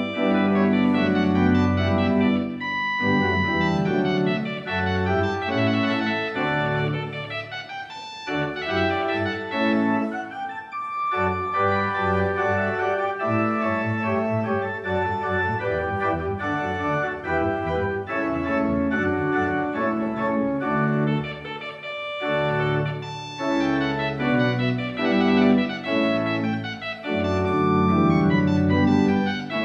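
Allen electronic church organ playing the recessional: full chords over a moving bass line.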